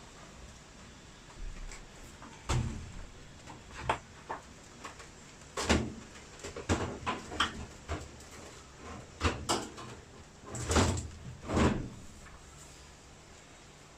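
Irregular knocks and clunks from washing machine panels and parts being handled during disassembly, with the loudest two close together near the end.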